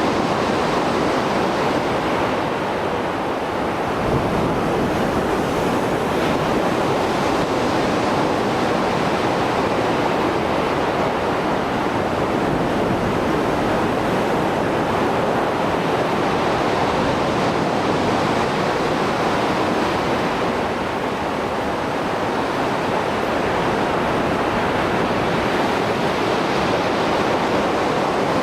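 Mediterranean Sea surf after a storm: a continuous wash of breaking waves, easing slightly and swelling again as the sets come in, with a sudden surge about four seconds in.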